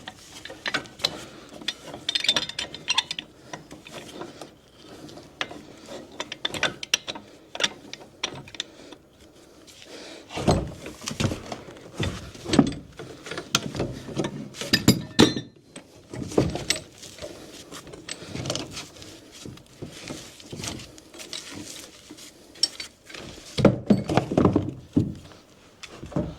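Irregular knocks, thuds and metallic clinks of hands-on demolition as a piece is worked loose and taken off, with a few heavier thuds spread through.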